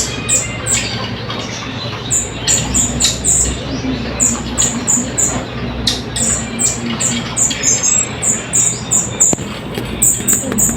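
Colasisi (Philippine hanging parrot) calling: a rapid series of short, shrill, very high notes, about three a second, in runs with brief pauses.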